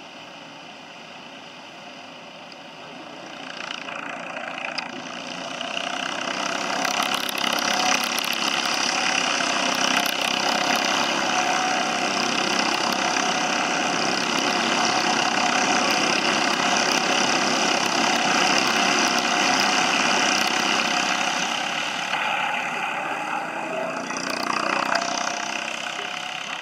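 Several racing karts' small engines running hard as a pack of karts passes close by. The noise builds up over a few seconds, stays loud for most of the time, then eases with one last swell near the end.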